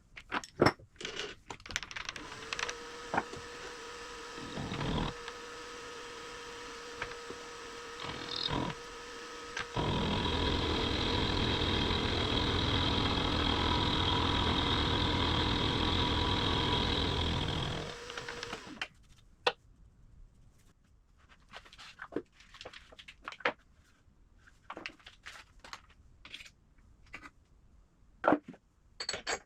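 A machine tool's motor runs steadily for about sixteen seconds, louder with cutting noise in its second half, then winds down and stops. It is bracketed by clicks and tool handling.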